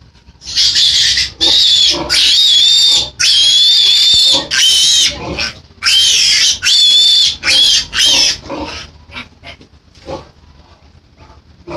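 Piglet squealing loudly while being picked up and held: about nine shrill, high-pitched screams in quick succession, tapering off into a few short, fainter squeaks near the end.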